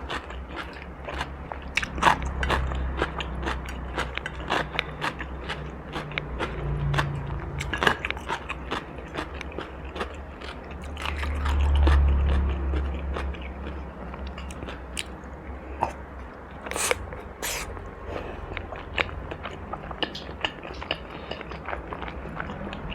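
Close-miked biting and chewing of crunchy food: a steady run of sharp crunches and crackles, with one low, louder swell about twelve seconds in.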